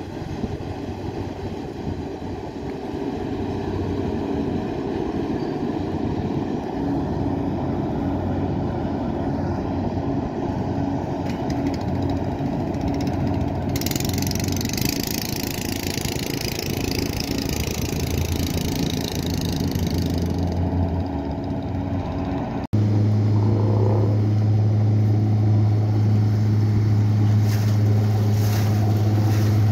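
Express passenger boats running fast on a river: a steady engine drone mixed with the rush of their wake, with a stronger hiss of water for several seconds midway. Near the end the sound cuts abruptly to a nearer, louder boat with a steady low engine hum.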